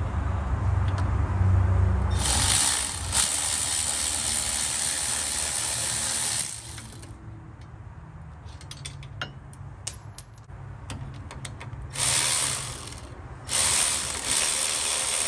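Cordless electric ratchet running in bursts as it backs out the 14 mm bolts that hold the rear wheel hub to the spindle: one long run of a few seconds, then two shorter runs near the end. Between the runs there are a few sharp metal clicks.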